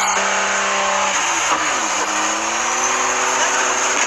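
Car engine running at high revs over a loud rushing hiss; the revs dip about a second and a half in, then climb slowly again.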